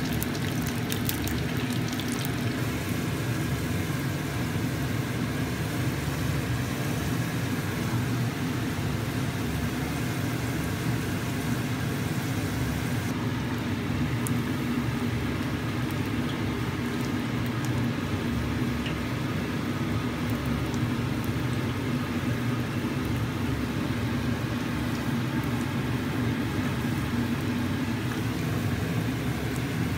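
Oil sizzling as food deep-fries in a small enamel saucepan, with a few sharp crackles in the first couple of seconds, over a steady low hum.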